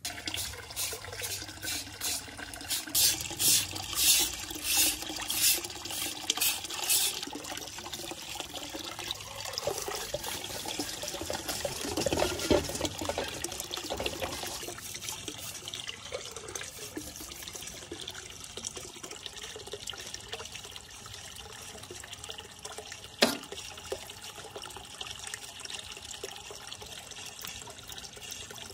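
Water sloshing and splashing in a steel bowl as a raw fish is rubbed and washed by hand, with a run of regular strokes about two a second in the first seven seconds. There is a single sharp knock about 23 seconds in.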